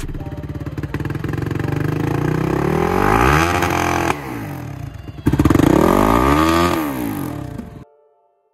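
Quad bike's engine running at a fast idle, then revved twice, each rev rising and falling in pitch, about three and five and a half seconds in. The sound cuts off suddenly near the end.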